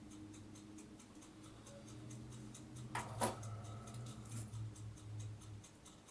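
Faint, evenly spaced ticking, with a single knock about three seconds in and a low steady hum through the middle seconds.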